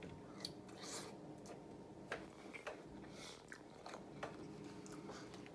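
Crawfish being peeled and eaten: faint, scattered shell clicks and cracks with chewing.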